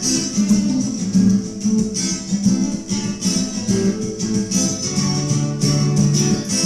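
Acoustic guitar playing a blues instrumental passage, strummed in a steady rhythm, with no singing.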